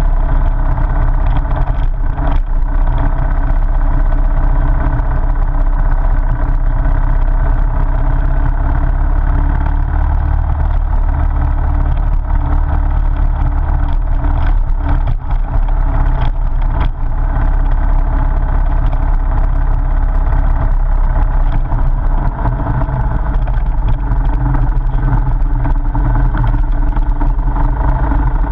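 Motorcycle engine running steadily while the bike rides a gravel road, with a few sharp knocks from bumps along the way.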